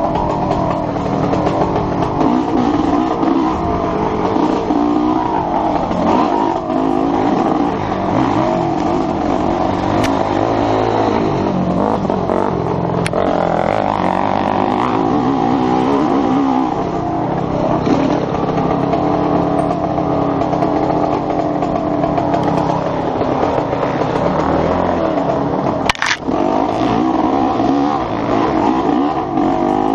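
Enduro motorcycle engine revving up and down as the rider accelerates and backs off over rough trail, heard from a helmet camera over a constant rush of noise. A sharp knock sounds near the end.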